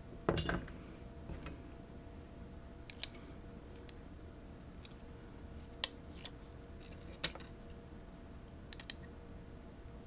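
Small metal clicks and taps as the sliders and pins of a Ruko Garant Plus high-security lock are taken out of the picked lock. A quick cluster of clicks just after the start is the loudest, then single faint clicks come every second or two.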